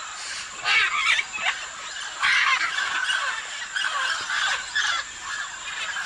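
Macaws squawking: harsh, raspy calls in repeated bursts, several overlapping, the loudest about a second in and at two seconds.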